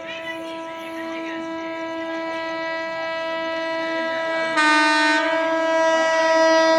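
Train horn held in one long steady blast. About two-thirds of the way in it swells louder and fuller, as a second tone joins.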